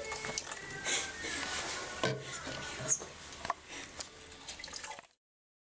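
Juice trickling and dripping into a plastic blender jar from a hand-held lemon squeezer, then liquid poured in from a small bottle, with a few light knocks. The sound cuts off abruptly about five seconds in.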